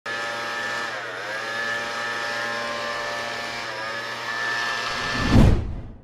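Hikins robot vacuum cleaner running with a steady, many-toned motor whine that dips briefly in pitch twice. Near the end a loud, deep whoosh swells and fades.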